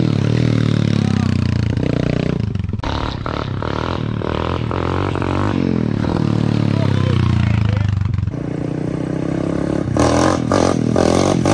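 Small four-stroke single-cylinder pit bike engines running as the bikes ride along. The engine note drops away about eight seconds in, followed by rattling knocks near the end.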